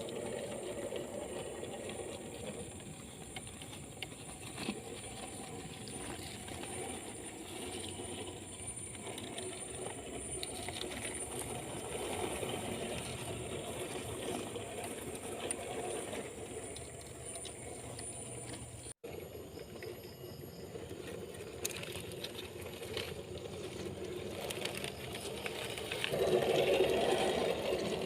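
Small electric motor and geared drivetrain of an RGT EX86100 RC rock crawler whirring and rattling steadily as it drives. There is a brief drop-out about two-thirds of the way through.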